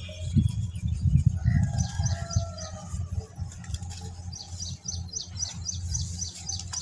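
Dry red dirt lumps crumbling in bare hands, with dull low thuds and the rustle of soil falling to the ground. A bird chirps in the background, a quick run of about five chirps a second through the second half.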